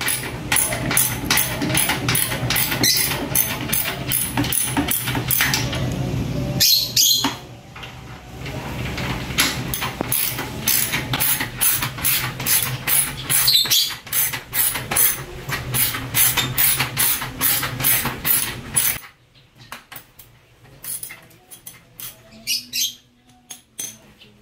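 Socket ratchet wrench clicking in quick, repeated strokes as bolts are loosened at a scooter's rear wheel and muffler, over a steady low hum. The clicking breaks off briefly about seven seconds in and stops abruptly about nineteen seconds in, leaving only a few scattered clicks.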